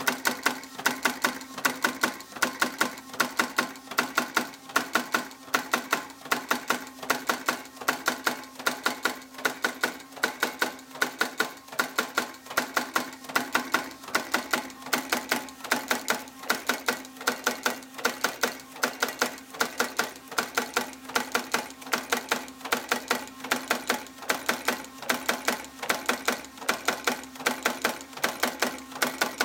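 Graphic Whizard numbering machine running, with a rapid, even mechanical clatter over a steady hum.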